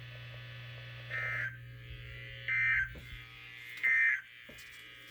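Three short, harsh bursts of Emergency Alert System digital data, about a second and a half apart: the end-of-message code that closes the alert. A steady low hum lies underneath.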